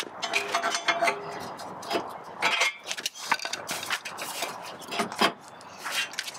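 Honda S2000's OEM front bumper support bar being tugged and wiggled by hand against the car's front end: a run of irregular metallic clinks, knocks and scrapes, with a brief ringing near the start. The bar is stuck on its damaged, rusting side and won't come free.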